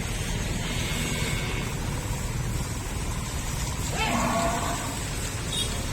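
A buffalo gives one short call about four seconds in, rising and then holding, over a steady low rumble.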